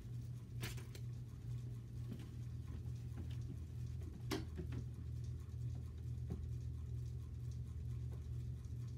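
Steady low hum of room noise, with a few soft knocks and taps as someone moves about the room, the clearest about a second in and about four seconds in.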